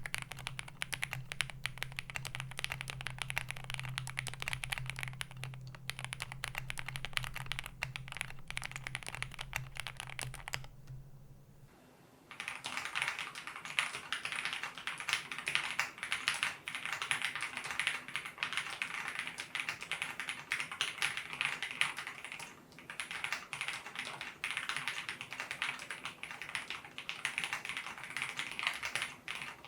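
Fast typing on a Zoom65 mechanical keyboard with lubed JWK linear switches on a polycarbonate plate in a full aluminium case: a dense, continuous stream of key clacks. The typing pauses briefly about eleven seconds in, and a low hum under the first part stops at the pause.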